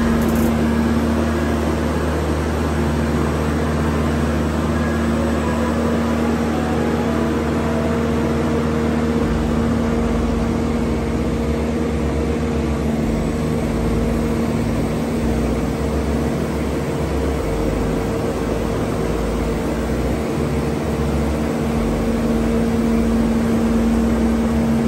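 Engine of a boatyard travel lift running steadily while it holds a boat in its slings, a constant drone with a low rumble that shifts a little after about nine seconds.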